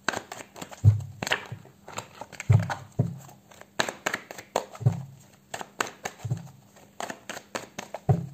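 A deck of tarot cards being shuffled by hand: a run of irregular crisp card snaps and clicks, with a few soft low thumps mixed in.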